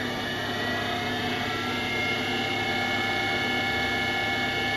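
Okamoto OGM 8-20U CNC cylindrical grinder running with its grinding wheel and work head spinning: a steady machine whine made of several held tones, a few of which edge slightly upward in pitch.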